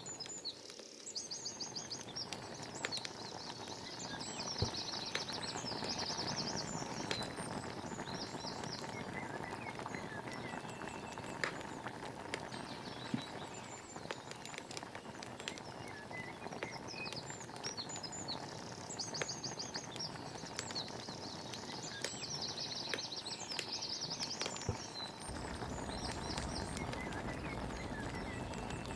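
Forest songbirds singing repeated quick trilled phrases a few seconds apart, over a steady outdoor hiss with scattered sharp clicks.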